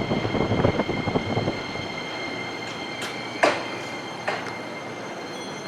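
Keisei Line electric train moving along a station platform: wheels clatter over the rail joints for the first second and a half, then ease off, under a steady high whine. Sharp metallic clanks and squeals from the wheels come about three seconds in, twice more shortly after, and once near the end.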